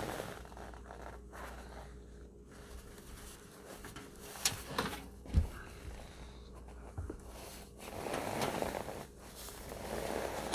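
Rustling and handling noise as a ceramic fibre insulation blanket is wrapped and rolled around a metal stovepipe, with a few light knocks about halfway through.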